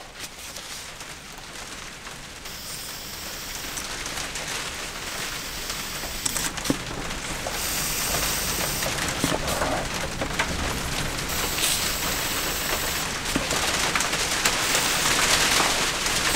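Steady rain, growing louder. At times a faint hiss of air can be heard being blown through the carburettor fuel feed tube past the lifted floats: a test that the fuel passages are clear.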